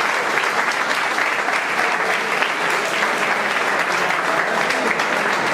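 Audience applauding, a room full of people clapping at a steady level.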